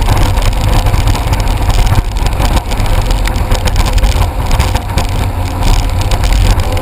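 Jet ski engine running steadily under way, with a loud rushing noise over it.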